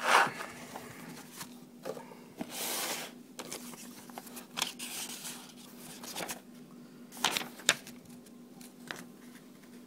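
Paper being handled: pages of a printed setup guide rustling, sliding and flipping in irregular bursts, with a couple of sharper crackles near the end as the packaging is uncovered.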